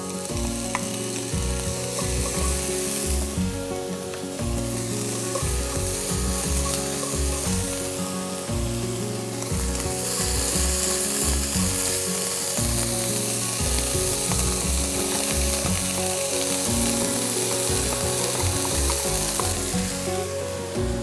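Vegetables stir-frying in a wok, sliced dried bamboo shoots and shiitake first, with a steady sizzle that grows louder about ten seconds in. Background music with a steady beat runs underneath.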